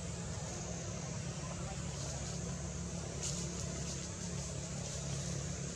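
Steady outdoor background noise: a low, even hum under a high hiss, with no distinct events.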